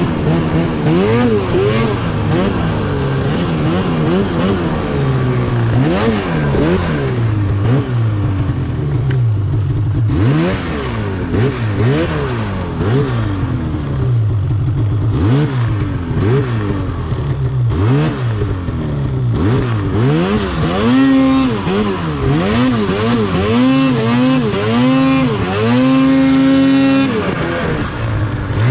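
Arctic Cat Alpha 154 mountain snowmobile's two-stroke engine revving up and down again and again as it is ridden through deep powder. Near the end the throttle is blipped in quick sharp rises, then held high for about a second before the revs drop.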